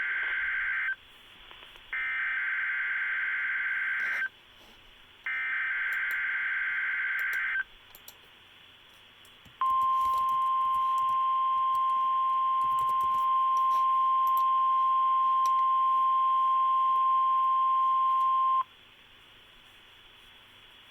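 Emergency Alert System test on NOAA Weather Radio. The SAME digital header sounds as a warbling data squawk, sent three times about a second apart, the first already under way. Then the 1050 Hz weather radio warning alarm tone holds steady for about nine seconds and cuts off abruptly.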